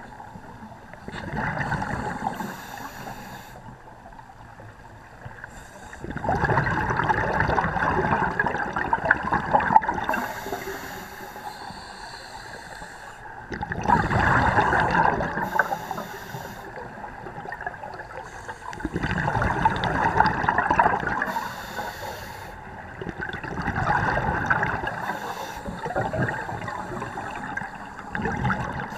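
Scuba regulator breathing underwater: exhaled air bursting out as gurgling, bubbling rushes, about five bursts of a few seconds each, spaced roughly five seconds apart, with quieter stretches between.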